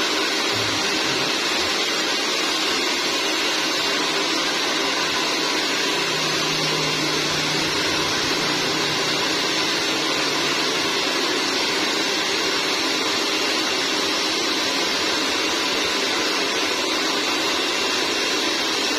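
Steady whooshing hiss of a motor-driven air blower running without a break, with a faint low hum for a few seconds in the middle.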